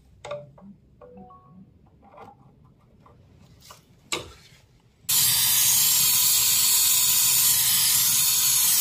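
A few faint clicks and taps of handling, then about five seconds in a brazing torch comes on with a loud, steady hiss, used to braze a pressure gauge onto the refrigerator's copper tube.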